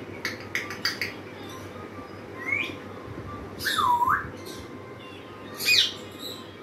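Congo African grey parrot clicking a few times, then whistling: a short rising whistle, then a louder swooping whistle that dips and climbs back up, and a quick sharp whistle near the end.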